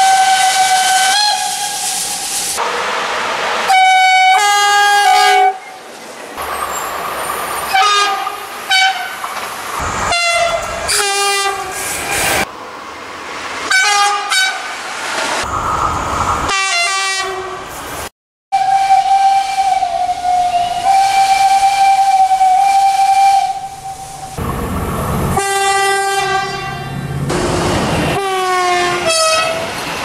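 A steam locomotive's whistle held for about a second, then a hiss of steam, followed by a quick string of short locomotive horn blasts, many sounding two notes, with one long steady horn note in the second half. The sounds change abruptly from one to the next.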